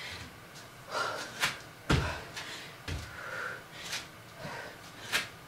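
Irregular thuds of a person exercising on a floor mat, roughly a second apart, with sharp breaths between.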